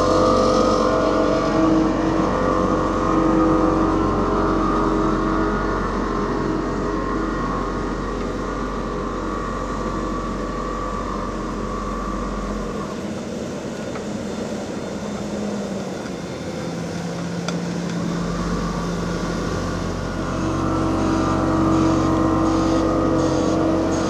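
Diesel engines of heavy asphalt-paving machinery running, a steady drone with several held tones. It eases off through the middle, its deepest hum dropping out for a few seconds, and builds again near the end.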